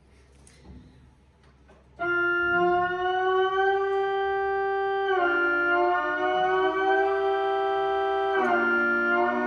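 Whelen Vortex and Thunderbolt 1003 tornado siren tones sounding together in harmony, starting suddenly about two seconds in at full strength. The chord shifts to new pitches about halfway through and dips and shifts again near the end.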